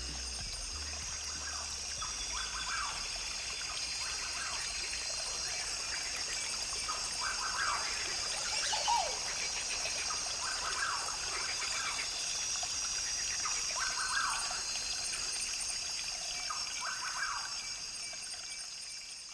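Rainforest ambience: a brook trickling under a steady high hiss, with a bird calling about every three seconds and one falling call midway. It fades near the end.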